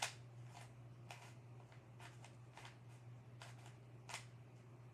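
Faint clacks of a 3x3 speed cube's layers being turned by hand, about seven separate irregular clicks, the first the loudest.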